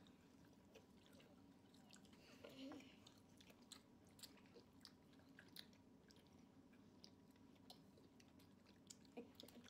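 Near silence with faint chewing of gummy candy strips: soft, scattered mouth clicks and smacks.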